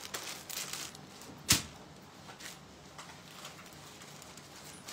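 Folded mekhela chador cloth rustling as it is handled and set aside, with one sharp knock about a second and a half in and a few lighter rustles after.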